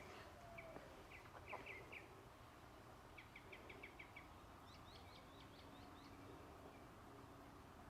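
Faint birdsong: small groups of short, high chirps in quick runs, three times, over a quiet outdoor background.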